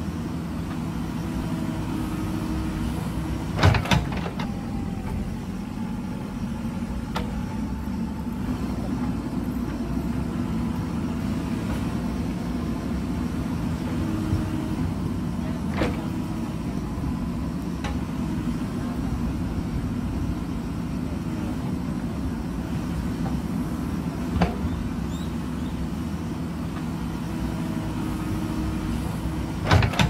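JCB backhoe loader's diesel engine running steadily under load as the backhoe digs, with a faint hydraulic whine. A few sharp metal knocks from the bucket and boom cut through: a loud pair about four seconds in, two single ones in the middle, and another pair near the end.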